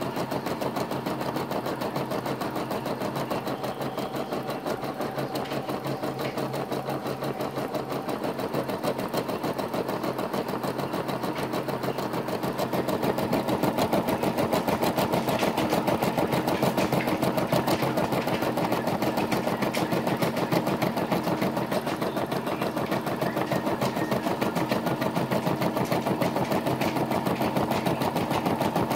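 Brother SE425 embroidery machine stitching a design, its needle running in a fast, steady rhythm that grows a little louder about halfway through.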